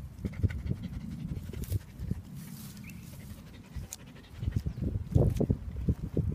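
Whippet panting with its muzzle down in long grass: quick, low puffs of breath, loudest about five seconds in.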